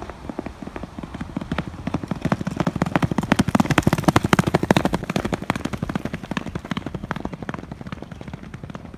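Horse galloping on a dirt track: a rapid run of hoofbeats that grows louder as it passes close about four seconds in, then fades as the horse races away.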